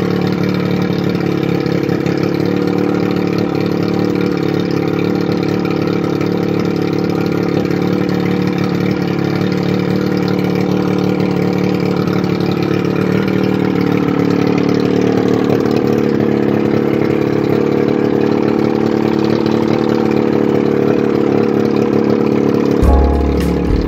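1981 Evinrude 35 HP two-stroke outboard idling steadily with its gearcase off, so the exhaust vents straight out through the midsection. The engine note shifts slightly about halfway through. Music comes in about a second before the end.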